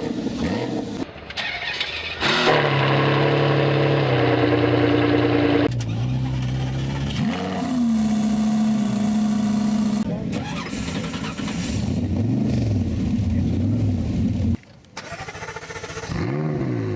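A run of different car engines starting up one after another, each firing up and revving, then settling to a steady idle, with abrupt cuts between them. The revs rise just after seven seconds in and again near the end.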